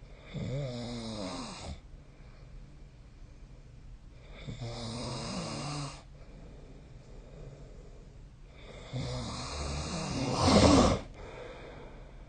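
A person snoring in their sleep: three snores about four seconds apart, each a rough, wavering pitched rasp lasting one to two seconds. The third is the longest and loudest and swells sharply just before it stops.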